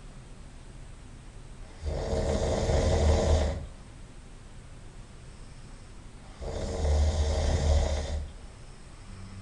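A man snoring loudly in his sleep: two long snores, each lasting close to two seconds, about four and a half seconds apart, with quieter gaps between them.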